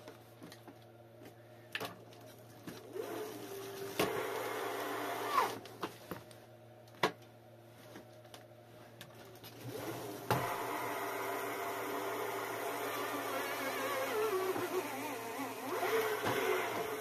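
WINDGOO B20 e-bike's electric motor whining under throttle with the wheel spinning unloaded: a short run about four seconds in, then a longer one from about ten seconds in, its pitch wavering. This is the test of a newly fitted battery pack, which now keeps the motor running.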